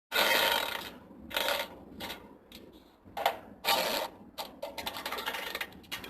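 Fart sound effect of the diarrhea kind: a long wet, spluttering fart, then a string of shorter spluttering bursts and a crackling run near the end.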